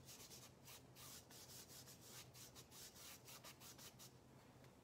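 Paintbrush scrubbing paint across a stretched canvas in quick back-and-forth strokes, about four a second, faint, stopping about four seconds in.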